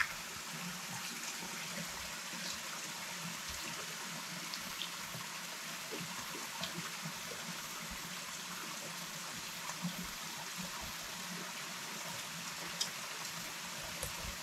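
Steady hiss of running water, with a few faint scattered clicks.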